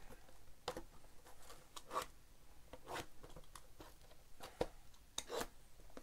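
Shrink-wrapped cardboard blaster boxes being picked up and shuffled by hand: a scatter of short rustles and taps of plastic wrap and cardboard, with a slightly louder pair about five seconds in.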